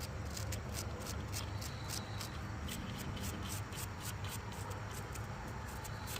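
Rubbing and handling noise with quick small clicks, about three or four a second, over a steady low hum.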